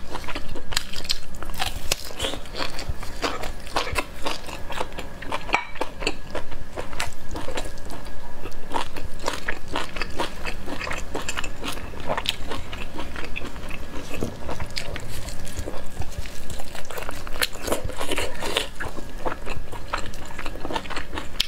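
Close-miked eating sounds: biting and chewing spiced beef ribs, a dense run of wet clicks, smacks and crunches.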